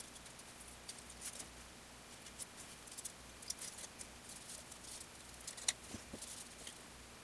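Wooden stir stick scraping and tapping as it works epoxy on a mixing card, with light handling of a wooden cup: faint scattered scratches and small clicks, one sharper click late on.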